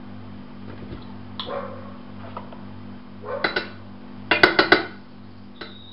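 Kitchen utensils clinking: cubed butter going into a stainless steel pot of water and a spatula knocking against the bowl and pot, a few scattered sharp clinks with the loudest quick cluster near the end. A steady low hum runs underneath.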